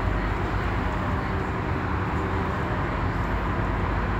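Scania Omnidekka double-decker bus heard from inside the upper deck: a steady engine drone and cabin rumble as the bus moves slowly in traffic.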